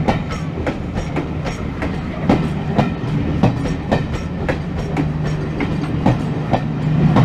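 Railway coaches rolling past, their wheels clicking irregularly over rail joints, with a steady low engine drone underneath.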